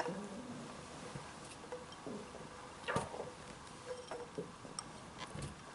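Faint, scattered light knocks and clicks as cubes of cold butter are tipped from a small bowl into a mixing bowl of flour, the clearest about three seconds in.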